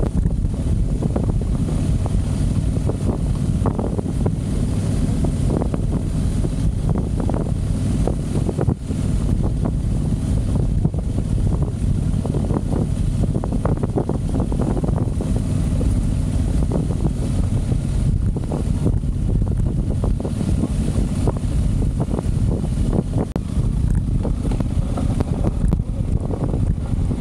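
Motorcycle engine running steadily under heavy wind buffeting on the microphone, with frequent short knocks and rattles.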